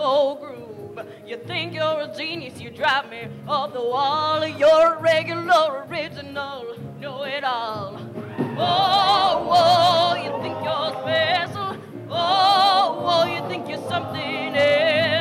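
Show choir singing to instrumental accompaniment: a woman's solo voice with vibrato over a steady bass line, swelling about eight seconds in into the full choir singing together.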